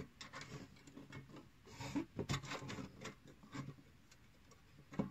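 Thin metal grill bars being slid into the slots on top of an Emberlit flat-pack metal bush stove: light metal-on-metal scraping with a few small clicks.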